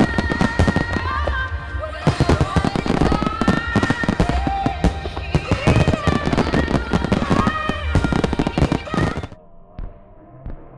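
Aerial fireworks bursting and crackling in a rapid barrage, with music playing over them. The barrage stops abruptly about nine seconds in, leaving only faint scattered pops.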